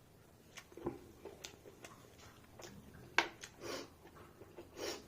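A person eating close to the microphone: wet mouth clicks and smacks of chewing, with a few short breaths or sniffs between bites.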